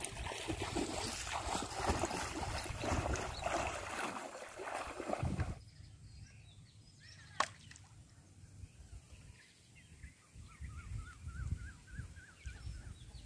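Water sloshing and splashing for about the first five and a half seconds, then it cuts to quiet outdoor ambience with a single sharp click and, near the end, a quick run of rising bird chirps.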